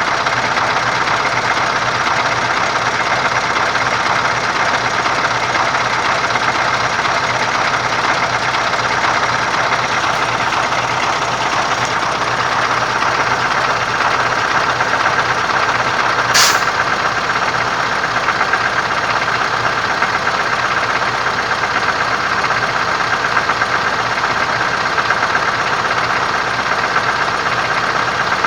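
MAZ-4370 truck running at a steady idle, with a rapid knocking from its SAAZ ZIL-type gearbox. A single sharp click about sixteen seconds in.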